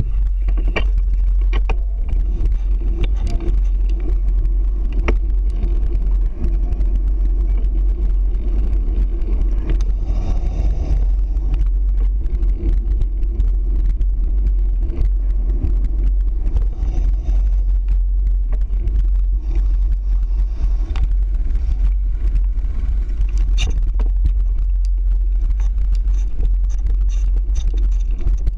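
Steady low rumble of wind and ride vibration picked up by a handlebar-mounted GoPro Hero 3 as a bicycle rolls over pavement. Scattered knocks and rattles come from bumps in the surface.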